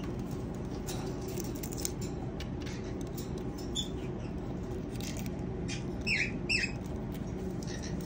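A hand rustling and clicking through wood shavings inside a wooden nest box, with two short squeaky cockatiel chirps, falling in pitch, about six seconds in, over a steady low hum.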